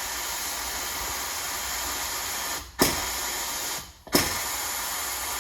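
Ingersoll Rand Model 117 air hammer blowing a steady hiss of compressed air without hammering or cycling, cut off twice briefly and starting again with a short burst. It fails to cycle because its plastic valve cap is broken.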